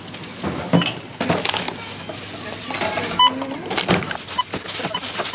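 Groceries being set down on a supermarket checkout belt, knocking and rustling. From about halfway through, a checkout barcode scanner gives short single beeps, about three times.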